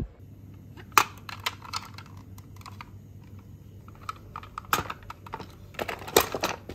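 Hard plastic clicks and clatter from a toy garbage truck being handled, with a sharp loud clack about a second in. Near the end a cluster of loud clacks comes as it is set down among other plastic toy vehicles.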